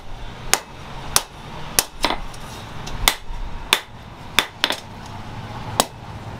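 Hand hammer beating a red-hot steel sickle blade, forged from a chainsaw bar, on a steel post anvil: about nine sharp, ringing metallic blows, roughly every half-second to second, with a pause of about a second before the last blow as the blade is turned.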